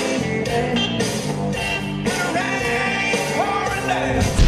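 Rock music with a singing voice and guitar.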